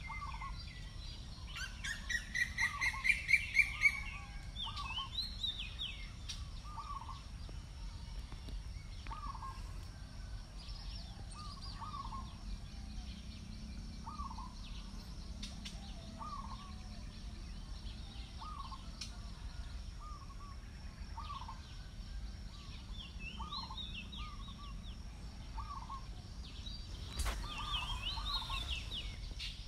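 Birds calling: one bird repeats a short call about once a second throughout, other birds chirp higher, and a loud rising trill of quick notes sounds a couple of seconds in.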